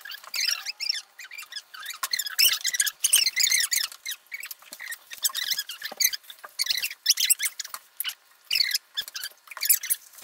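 Aluminium foil sandwich wrapper crinkling and crackling in a stop-start way as it is handled and peeled open.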